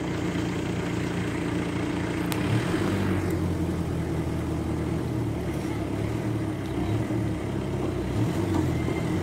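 An engine running steadily with a low hum, its pitch shifting slightly about two and a half seconds in.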